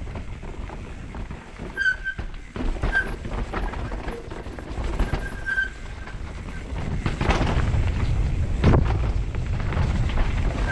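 Mountain bike riding down a rough dirt singletrack: tyres rolling over roots and rocks with knocks and rattles from the bike, over a steady rumble of wind on the microphone, growing louder about two-thirds of the way through. Short high-pitched brake squeals come a few times.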